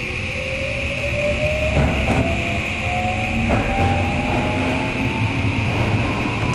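Electric subway train accelerating away from a station, heard from inside the car: a whine rising steadily in pitch as it picks up speed, over the steady rumble of wheels on rail in the tunnel.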